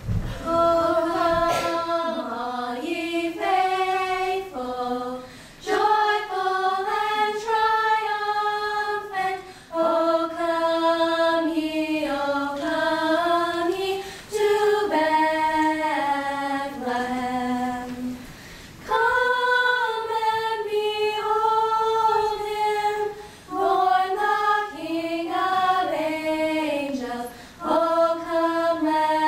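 A small group of girls singing together in unison, a carol sung in long held notes, in phrases of about four to five seconds with short breaks for breath between them.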